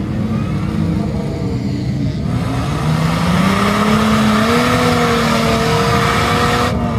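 Off-road buggy's engine revving hard under load as it climbs out of a deep mud pit. Its pitch rises about three seconds in, holds high, and drops near the end. A broad rushing noise sits over it from about two seconds in and cuts off just before the end.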